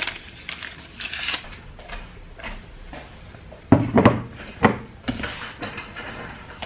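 A paper tea sachet torn open with a short rustle, then, about four seconds in, a few loud knocks and bumps as a desk chair is moved and handled.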